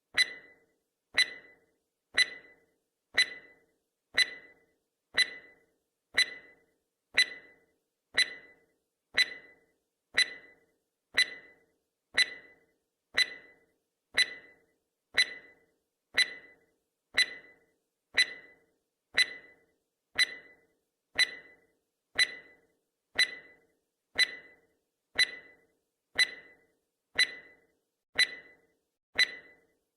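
Countdown timer sound effect ticking once a second: a sharp clock-like tick with a brief ringing tone each time, keeping an even beat.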